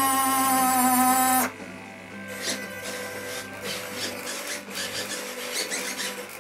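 Small electric gear motor inside a large model Panavia Tornado jet whining steadily with a slightly falling pitch during a function test. It cuts off abruptly about a second and a half in, leaving faint clicks and light handling sounds.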